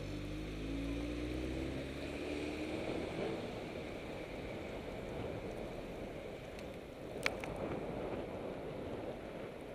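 Wind rushing over the microphone of a bicycle-mounted camera moving through city traffic. A car engine accelerates nearby for the first three seconds, its pitch rising. There is a single sharp click about seven seconds in.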